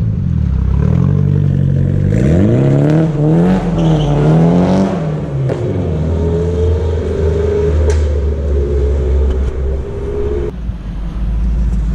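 Car engine revving as it pulls away. The pitch climbs steeply a couple of seconds in, dips and climbs again, then settles into a steadier drone.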